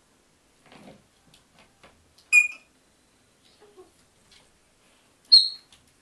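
African grey parrot giving two short, sharp, high whistles about three seconds apart, the second one higher-pitched, with faint clicks in between.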